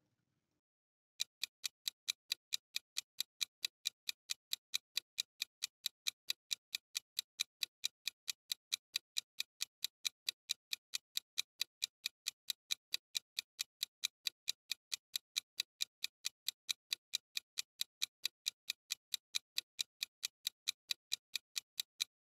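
Ticking-clock countdown sound effect: a long run of steady, evenly spaced ticks starting about a second in, timing the answer countdown.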